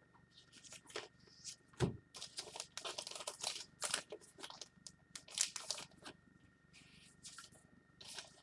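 Faint crinkling and scraping handling noises in quick, irregular runs, with one dull thump about two seconds in.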